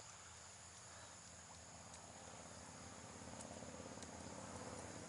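Faint steady chirring of crickets, with a low rumble underneath that grows a little louder in the second half.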